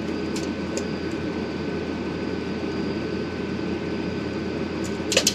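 Steady mechanical hum with a faint thin whine over it, and a couple of light clicks, the loudest near the end.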